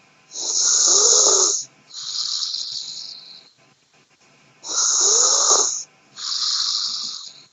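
A person snoring: two slow snoring breaths about four and a half seconds apart, each a loud snore followed by a quieter breath.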